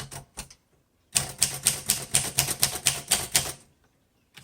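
1936 Royal Model O portable manual typewriter being typed: a few key strikes, a short pause, then a quick run of sharp typebar clacks against the platen.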